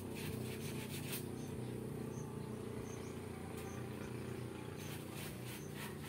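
Soft handling rustles of a garden hose being worked onto a plastic hose connector by hand, in the first second and again near the end, over a steady low hum. A faint high chirp repeats about three times every two seconds.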